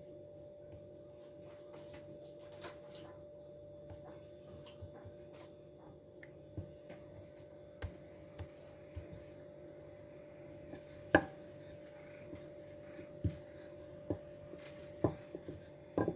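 Scattered knocks and taps of kitchen work on a counter or board, a few sharper knocks in the second half, over a steady faint hum.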